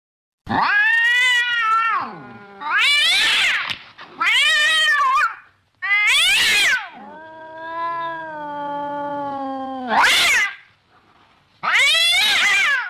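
A cat meowing loudly in a run of drawn-out calls that rise and fall in pitch, with one longer, lower, slowly falling meow in the middle.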